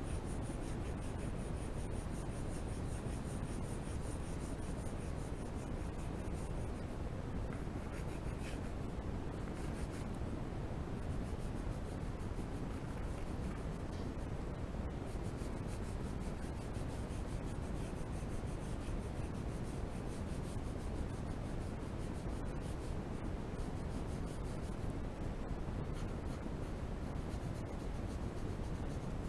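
Colored pencil shading on paper: a steady, scratchy rubbing of the pencil lead back and forth across the sheet.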